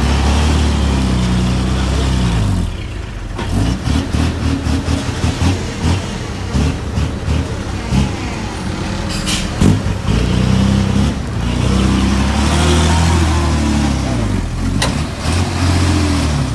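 Heavy diesel machinery engine working under load, revving up and down, with a few sharp knocks.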